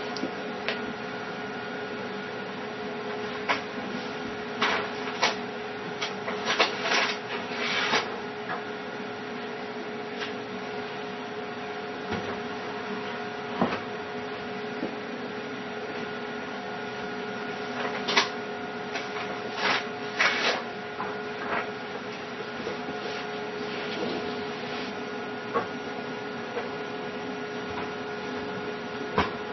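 Steady machine hum with a constant tone, broken by scattered short clicks and a few brief rustling bursts.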